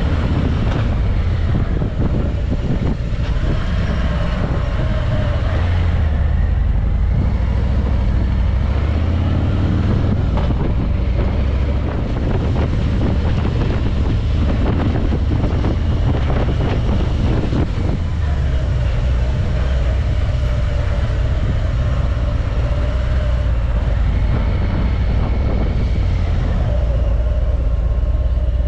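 A car driving: a steady low engine and road rumble, with a run of small knocks and rattles in the middle.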